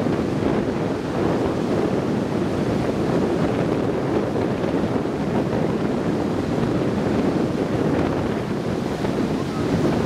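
Heavy hurricane-driven surf breaking and washing ashore, with strong wind buffeting the microphone: a steady, even rush of noise.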